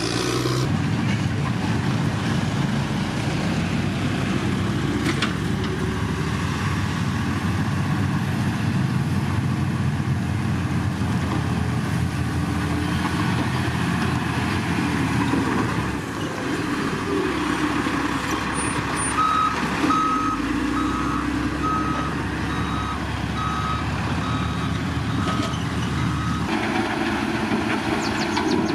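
Heavy diesel road-construction machinery working crushed gravel, with engines running steadily. In the second half a reversing alarm beeps at an even pace for several seconds.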